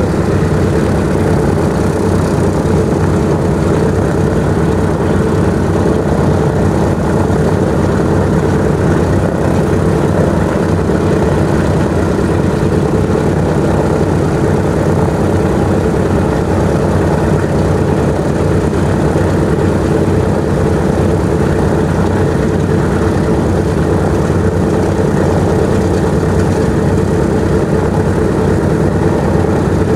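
Radial piston engines of a World War II four-engine bomber running steadily at idle while it taxis: a loud, even, deep drone with no change in pitch.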